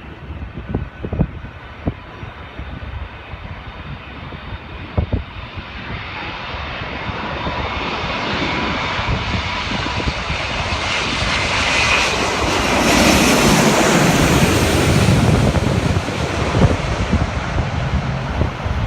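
Airbus A380's four jet engines on landing approach, the roar building over several seconds, loudest about two-thirds in, then settling into a deeper rumble as the airliner goes past. A few short knocks near the start.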